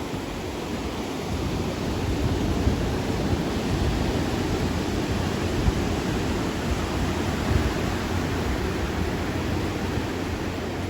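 Ocean surf washing onto a beach: a steady, even rush of waves with no distinct breaks.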